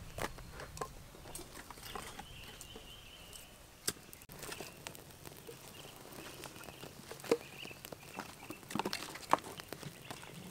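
Dry firewood sticks knocking and scraping as they are laid on a small wood fire, a few scattered sharp knocks, the loudest near the end.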